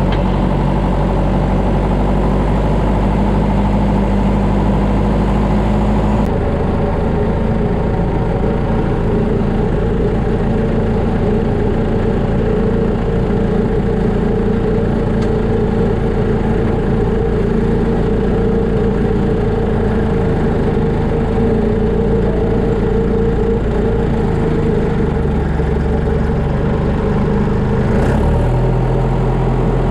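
John Deere tractor's diesel engine running steadily, heard from the cab. Its note changes abruptly about six seconds in and shifts again near the end.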